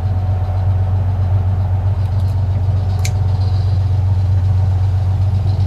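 Fishing boat's engine running steadily under way, a low, even drone.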